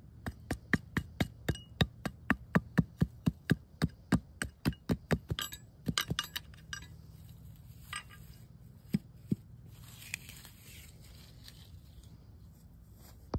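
Hatchet blade striking the dirt around the base of a dog-proof trap, a fast run of sharp chopping strikes, about four a second, for roughly five seconds, then a few scattered strikes.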